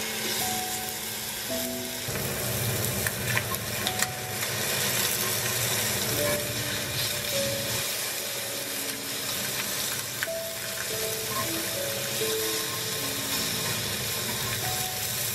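Pork belly slices sizzling as they sear in a hot enamelled cast-iron pan, with a few clicks of metal tongs against the pan about three to four seconds in as the slices are turned. Soft background music plays underneath.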